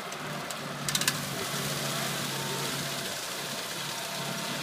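Kubota M9960 tractor's diesel engine running steadily while it pulls a Massey Ferguson TD1648 rotary tedder through cut hay, over a steady hiss. A short cluster of sharp clicks about a second in.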